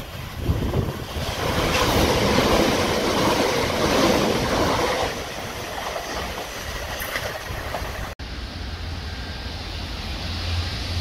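A Southern Class 377 Electrostar electric train running in on the rails: wheel and rail noise that swells over a few seconds, then eases. After a sudden break about eight seconds in, a steady low drone from the Sandite multi-purpose vehicle approaching in the distance.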